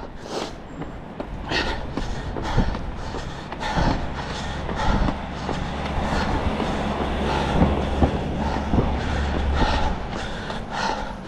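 Steady low rumble of a passing vehicle, building from about a second in and dropping away near the end, with a runner's heavy breathing over it.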